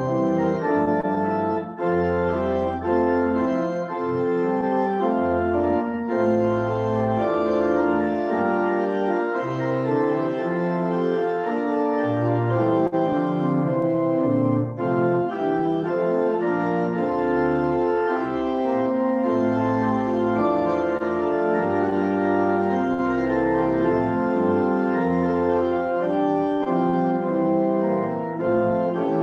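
Church organ playing a postlude after the closing blessing: sustained full chords over a moving bass line, the harmony changing every second or two.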